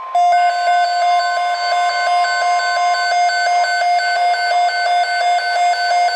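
Weather-radio alert alarm sounding as a flood watch is toned out on NOAA Weather Radio. A pulsing beep, about three times a second, from Midland WR120 weather radios sounds over the broadcast's steady warning tone, which ends about three seconds in.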